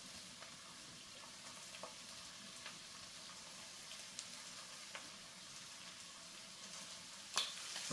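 Chunks of crappie fillet frying in a hot skillet: a quiet, steady sizzle with a few light ticks and crackles as more pieces are laid into the pan.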